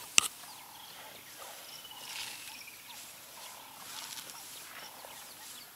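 Birds calling in the bush: short repeated calls and a descending trill about two seconds in. A single sharp snap just after the start is the loudest sound.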